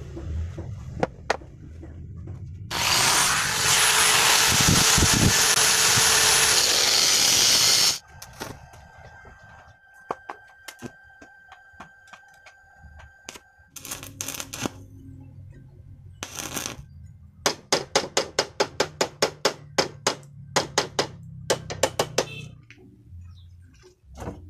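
Steel tubing of a folding table frame being worked on a wooden bench. A loud rushing hiss with a high whistle lasts about five seconds, then a run of sharp metallic strikes comes near the end, about three a second.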